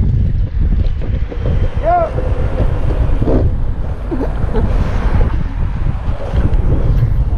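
Wind buffeting an action camera's microphone as it moves, a heavy low rumble, with one short squeak that rises and falls in pitch about two seconds in.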